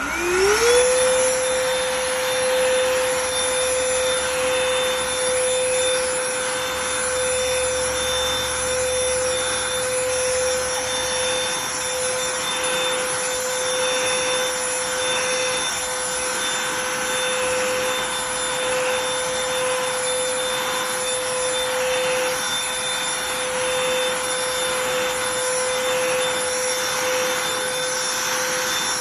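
A cordless handheld vacuum is switched on; its motor whine rises quickly in pitch and settles into a steady high whine. It keeps running steadily with a hiss of suction while it picks up dog hair.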